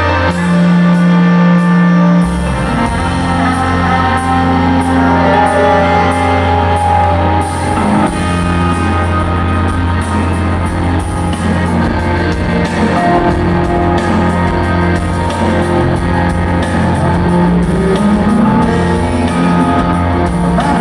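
Live rock band playing, with electric guitar prominent over a steady bass line.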